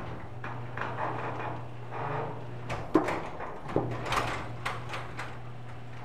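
Electric garage door opener running, its motor humming steadily while the door rattles along its tracks, with sharp knocks about three and four seconds in. This is the opener's monthly auto-reverse (pressure) safety test.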